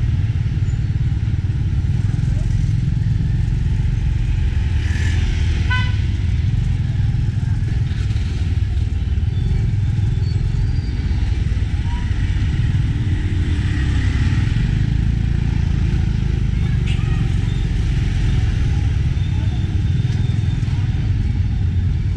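Tuk-tuk ride through city traffic: the tuk-tuk's engine and road noise make a steady rumble, with other motorbikes passing.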